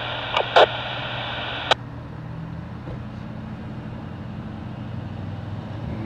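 Police scanner static that ends after two short bursts and a sharp click, under two seconds in, as the transmission drops out. A steady low vehicle engine hum is left underneath.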